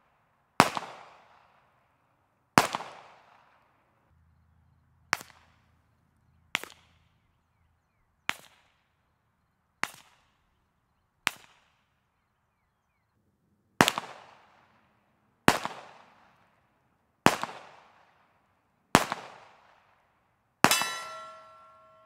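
Twelve pistol shots from an HK USP Tactical .45 ACP, heard from about 75 yards, roughly one every second and a half. The first two are loud with a long echoing tail, the middle five are quieter, shorter cracks, and the last five are loud again. A ringing metallic tone follows the final shot near the end.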